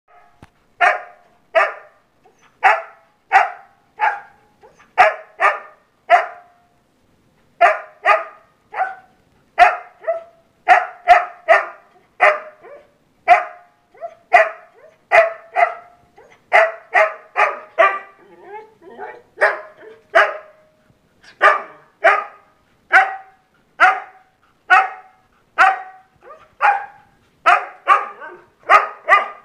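Husky barking over and over, short sharp barks often in runs of two or three, about one to two a second: a dog on its leash impatient to be taken out.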